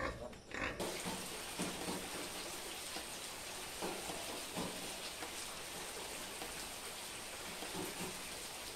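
Steady rain falling, an even hiss that starts abruptly about a second in, with a few faint short knocks through it.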